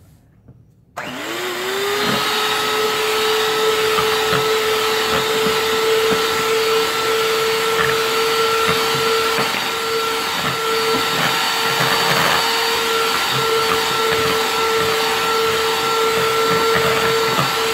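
Electric hand mixer switched on about a second in, its motor whine rising quickly to a steady pitch and then running steadily as the beaters whip cream in a bowl.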